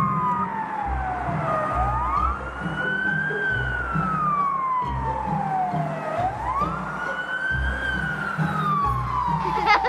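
Wailing police-style siren: each cycle rises quickly in pitch, then falls slowly, repeating about every four seconds.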